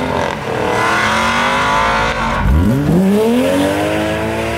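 Sports cars accelerating hard away one after another. A steady engine note carries the first couple of seconds, then a BMW E36's engine revs up sharply about two and a half seconds in and keeps climbing.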